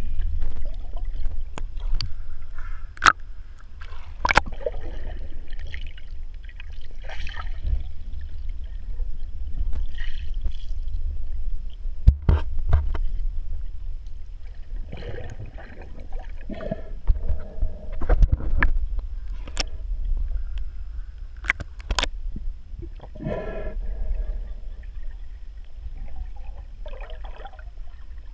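Muffled underwater sound heard through a GoPro's waterproof housing: a steady deep rumble of moving water, with sharp clicks and knocks scattered throughout and several short bursts of gurgling.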